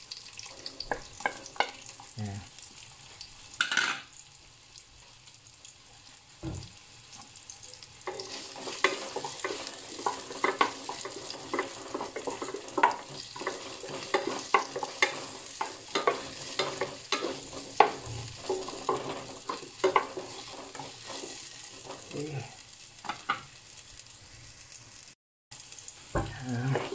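Chopped onion and garlic frying in olive oil in a pan, sizzling, while a utensil stirs them with many quick scrapes and clicks against the pan. The sizzling and stirring are quieter for a few seconds early on and pick up from about eight seconds in.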